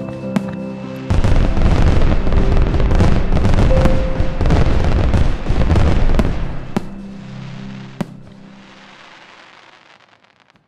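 Fireworks crackling and popping over background music. About a second in, dense crackling comes in loud, with a few sharp single bangs later, and then it all fades away near the end.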